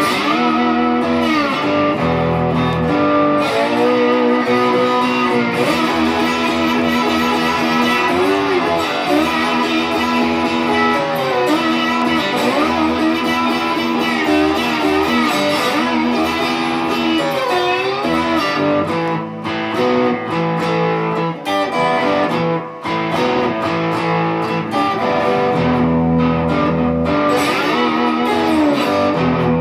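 Squier Stratocaster electric guitar playing an instrumental blues break with repeated bent notes, with no singing.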